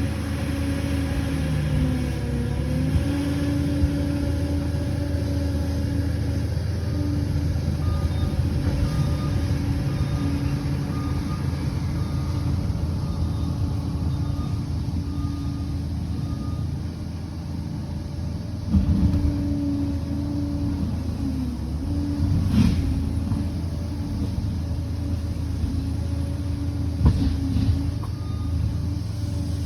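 Liebherr PR 746 crawler bulldozer's diesel engine running steadily, with a whine that comes and goes. Three sharp clanks stand out in the second half.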